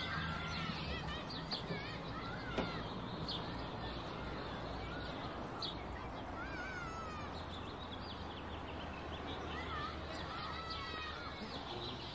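Birds chirping and singing, many short curved calls, over a steady low outdoor background rumble. A single sharp click about two and a half seconds in.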